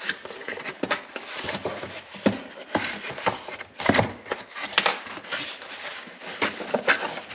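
Parts being unpacked and handled: rustling packaging with irregular knocks and clicks.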